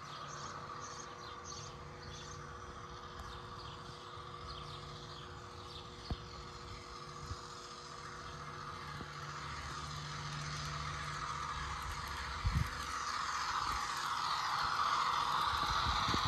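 HO scale Walthers Mainline EMD NW2 model locomotive running, its DCC sound decoder playing a diesel engine over the motor and wheels on the rails, growing louder over the last few seconds as it comes close. A few sharp clicks.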